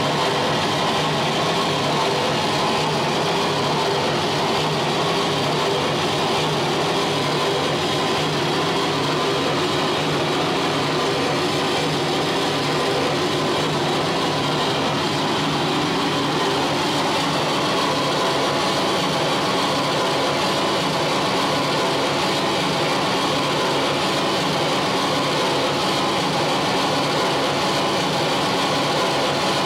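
Live harsh noise music from an amplified turntable: a dense, unbroken wall of distorted noise that holds steady in loudness.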